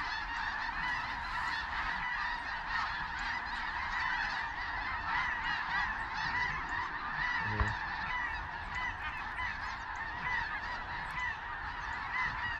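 A large flock of geese calling high overhead: a dense, continuous chorus of many overlapping honks. There is a brief low thump about halfway through, and the chorus cuts off suddenly at the end.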